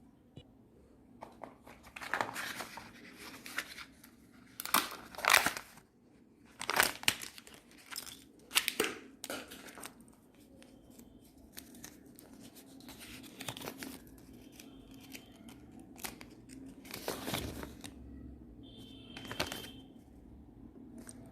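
Kinder Joy egg wrappers being torn open and crinkled, in irregular bursts of tearing and rustling. The loudest tears come about five to nine seconds in.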